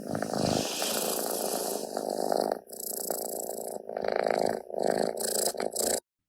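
A cat purring loudly and close, in stretches with short breaks, stopping abruptly near the end.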